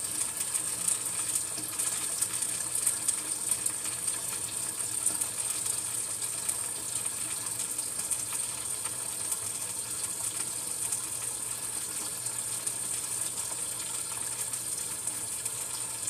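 Cold water running steadily into a pot of pinto beans, filling it.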